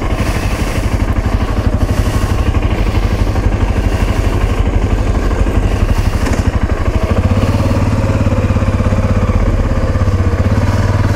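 Motorcycle engine running as the bike pulls away and rides along the road; its pulsing note settles and steadies from about seven seconds in.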